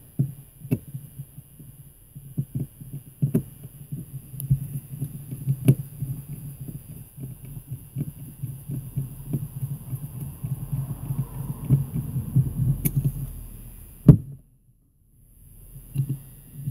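Small metal deadbolt cylinder parts being handled and reassembled by hand: irregular light clicks and taps over a low handling rumble, with one sharper knock about fourteen seconds in.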